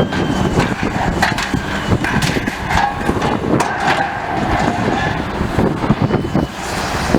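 Demolition excavator tearing into a building: a continuous clatter of crunching and knocking debris over the machine's running noise, with a couple of brief high squeals.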